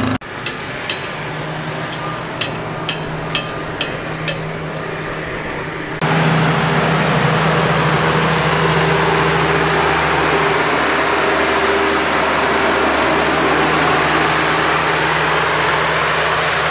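An Oxbo self-propelled sprayer running as it drives across the yard, its engine and cooling fan making a loud steady rushing noise over a low hum; the fan noise is described as noisy. Before it sets in, about six seconds in, there is a quieter steady hum with about seven sharp clicks.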